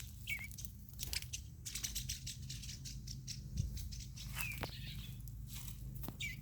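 A few short bird chirps, spaced out, over frequent light rustling and clicking.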